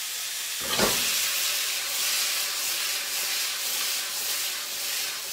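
Vegetable hash sizzling in duck fat in a skillet on the stove. About a second in there is a knock as the pan is lifted, and the sizzle grows louder while the hash is tossed.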